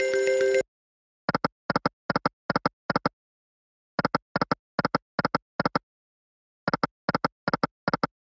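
Online video slot's reel-stop sounds: a quick double tick as each of the five reels lands, repeated over three spins with brief silences between. A short game chime rings and cuts off at the start.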